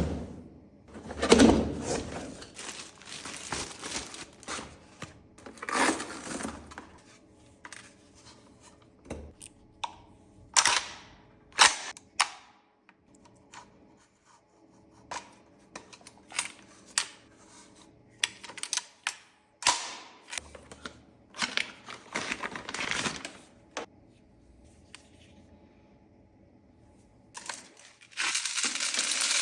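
A VFC AK74M gas blowback airsoft rifle being handled, with a string of separate mechanical clicks, clacks and rattles spread out across the stretch. A dense, steady noise begins near the end.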